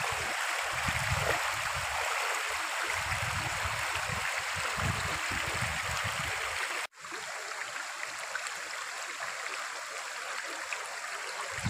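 Shallow stream running steadily over rocks. The sound breaks off for an instant about seven seconds in, then goes on a little quieter.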